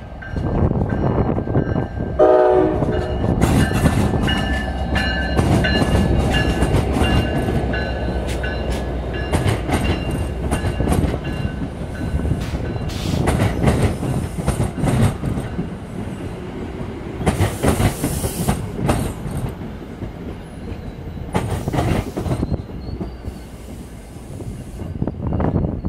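NJ Transit PL42AC diesel locomotive passing with a short K5LA horn blast about two seconds in, followed by the commuter coaches rolling by, the wheels clicking steadily over the rail joints.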